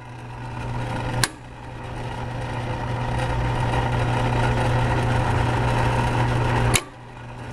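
Ammco 3850 brake lathe running with a steady electric motor hum. A sharp click about a second in and another near the end each briefly cut the sound down before it comes back.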